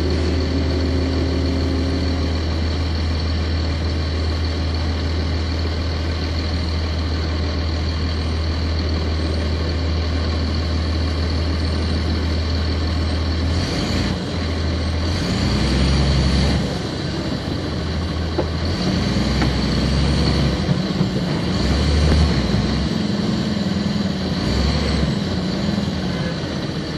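Cummins ISC inline-six diesel of a 1999 Nova Bus RTS, heard from inside at the rear, idling steadily. About halfway through, the engine note starts rising and falling as the bus pulls away and the ZF automatic transmission works through its gears.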